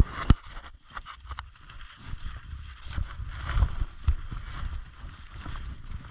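Snowshoe footsteps crunching through snow at a walking pace, with a few sharp clicks in the first second and a half.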